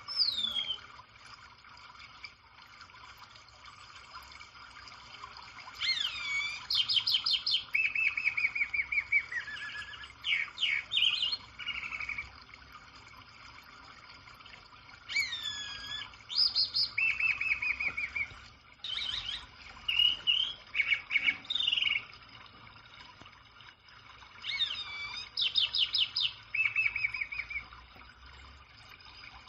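A songbird singing the same song in three bouts about nine to ten seconds apart. Each bout is several seconds of rapid high notes, downward slurs and trills, with quieter pauses between.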